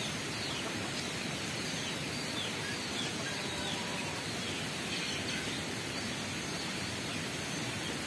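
Outdoor ambience: a steady hiss with faint, short bird chirps scattered through it.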